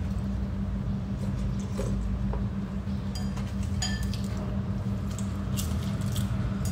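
Eating at a table: utensils clinking and tapping against ceramic bowls and dishes, a few short clicks, one with a brief ring about four seconds in, over a steady low hum.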